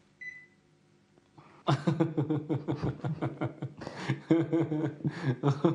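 A short high beep right at the start, then from about two seconds in, men laughing in repeated bursts.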